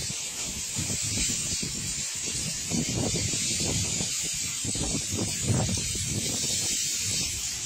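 Sheets of thin lake ice pushed onto a pebble shore, breaking into needle-like shards that crackle and tinkle against each other as a continuous high hiss. An uneven low rumble runs underneath.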